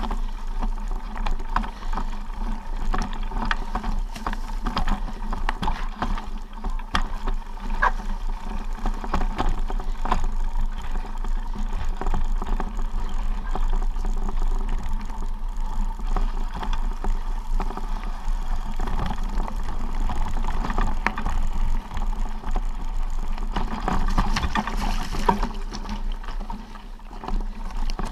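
Steady rushing wind noise on the microphone, with scattered crunches of movement over dry leaves and gravel on a forest trail; it dips briefly near the end.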